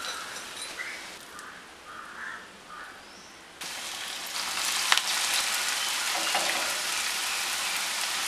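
Shredded cassava pieces deep-frying in hot oil. The sizzle is quieter at first, then jumps to a loud, steady sizzle about three and a half seconds in as fresh pieces are dropped into the oil, with one sharp click about five seconds in.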